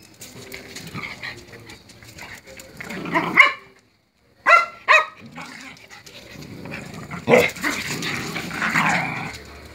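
Several dogs play-fighting, growling, with two short, high barks about halfway through; the sound cuts out for under a second just before the barks.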